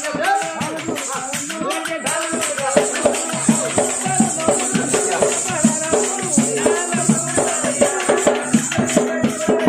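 Telugu Oggu Katha folk music: singing voices over a dolu barrel drum beating a steady rhythm, with a jingling rattle. The drumming grows louder about three seconds in.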